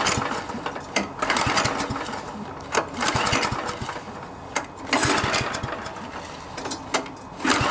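Recoil pull-starter cranking a 139cc OHV single-cylinder engine on a tiller, about four separate pulls, each a second-long burst of cranking that never catches and runs. The engine won't start even with the choke on, which the mechanic puts down to the carburetor, most likely a fuel system that needs cleaning out.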